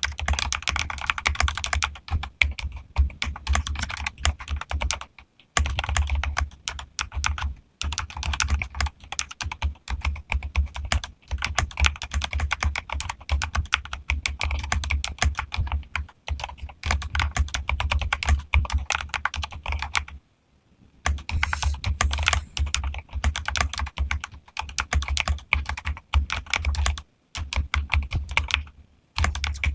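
Modded mechanical keyboard being typed on fast and continuously, a dense run of key clicks broken by a few short pauses.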